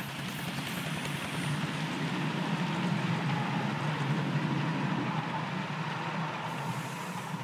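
Ride-on miniature passenger train rolling past close by: a steady rumble of coach wheels on the track with a faint steady whine, swelling as the coaches pass and easing off toward the end.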